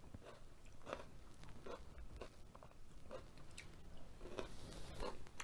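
A person chewing and biting food, with small irregular mouth clicks and smacks.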